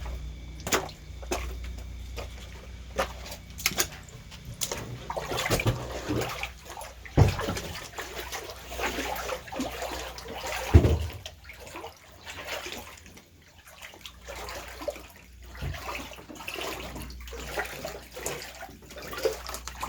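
Floodwater in a basement splashing and sloshing in irregular strokes, the loudest about seven and eleven seconds in.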